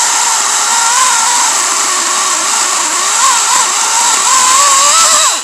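WEN 16-inch cordless electric chainsaw cutting through a cedar log, its motor whine wavering in pitch as the load on the chain changes. Right at the end the pitch drops quickly as the trigger is let go and the saw winds down.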